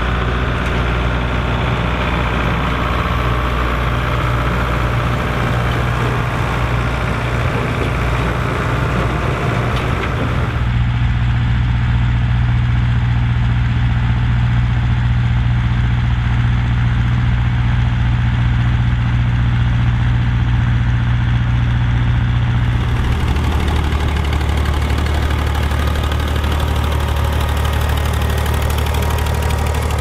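Tractor diesel engines running steadily under load while pulling sugar beet harvesters through the field. The engine sound changes abruptly twice, about a third and three quarters of the way through, as different tractors are heard.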